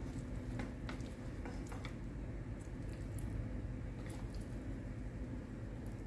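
Sticky sauce-glazed chicken pieces being handled and arranged on a plate: a few light clicks and soft squishes over a steady low hum.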